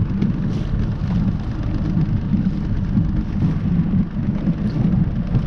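Boat motor running steadily as the boat cruises, a low rumble with no change in speed.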